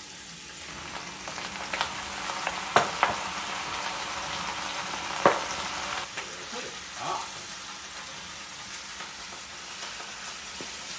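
Sausages and onions sizzling as they fry in a hot pan, with a few sharp knocks of a utensil against the pan as they are stirred, most between about two and five seconds in.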